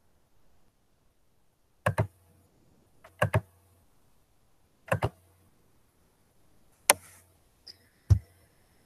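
Computer mouse clicks: a handful of sharp clicks, mostly in quick pairs, with quiet between them, from working a computer to start screen sharing.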